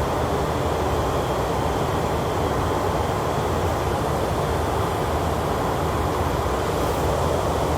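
Steady flight-deck noise of an Airbus A330 in descent on approach: an even rush of airflow and engine noise heard inside the cockpit, without change.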